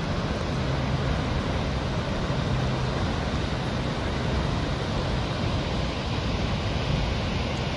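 Snoqualmie Falls pouring into its plunge pool: a steady rushing noise with no breaks.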